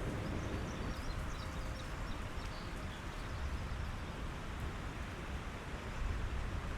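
Thunderstorm ambience in the woods: a steady low rumble under an even hiss, with a few faint high chirps in the first few seconds.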